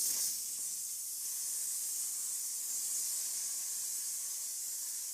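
Steady hiss of a pressurized air spray, high and even, held for about six seconds before cutting off abruptly.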